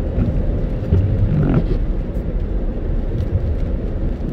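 Car driving on a wet road, heard from inside the cabin: a steady low rumble of tyres and engine, with a short rising sound about a second and a half in.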